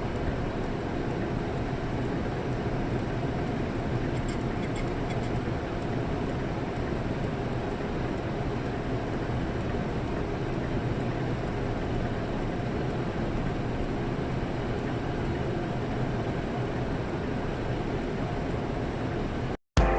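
Suzuki Jimny on the move: steady engine and road noise with a low hum. It cuts off suddenly just before the end.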